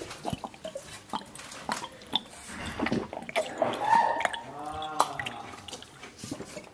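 Liquid glugging from an upturned glass bottle, with irregular gulps and gurgles as it is chugged in one long drink.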